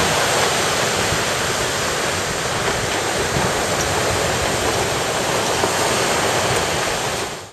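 Shore-break waves breaking and foaming on the beach: a steady rush of surf that cuts off suddenly at the very end.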